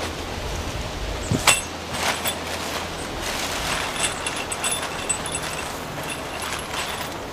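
Big steel lag bolts being handled: a sharp metallic clink about a second and a half in, then a series of lighter clinks with a short ring as the bolts knock together.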